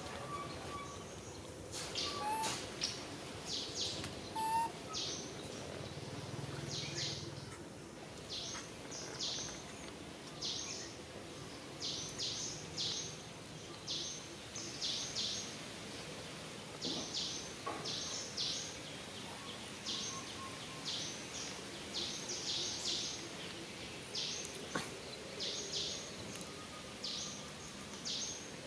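Forest ambience: short, high chirps in quick groups of two to four, repeating all the way through, with a few faint brief squeaks in the first few seconds.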